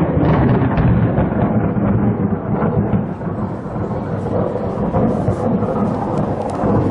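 Thunder rumbling on after a clap, a deep, rolling noise that is strongest at the start and eases off a little about halfway through.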